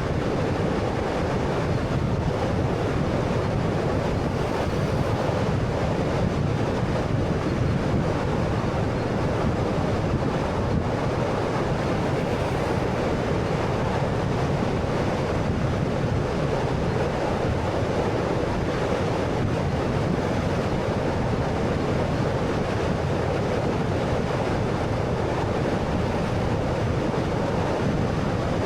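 Steady road noise from a 2013 Honda Fit 1.3-litre hatchback driving at a constant speed: an even rush of tyre and wind noise, with no change in level.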